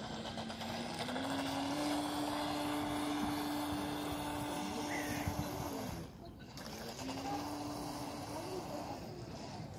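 Feng Tai FT011 RC speedboat's brushless motor whining as the boat runs across the water, its pitch stepping up about a second in and then holding steady. The whine drops away for about a second past the middle, then comes back at a similar pitch and eases lower near the end.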